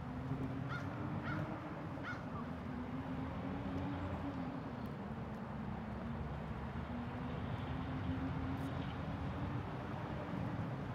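A crow cawing three times in quick succession about a second in, over a steady low drone and rumble.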